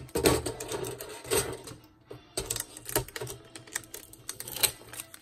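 Hands rubbing a vinyl decal down onto an acrylic keychain through clear transfer tape, with a run of irregular clicks and scratchy rubs as fingers, plastic and paper sheets are pressed and shifted on the metal tray.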